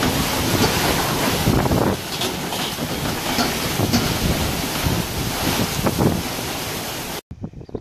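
Storm wind gusting hard and buffeting the microphone, with heavy rain and sea noise and a few sharp knocks as white plastic terrace chairs are blown over. It cuts off suddenly near the end.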